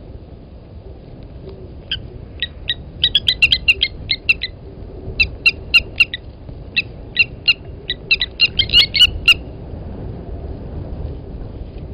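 Blacksmith lapwing giving rapid runs of short, sharp, metallic 'tink' calls, its alarm at an impala walking close to its nest. The calls start about two seconds in, come in quick bursts, and stop a couple of seconds before the end.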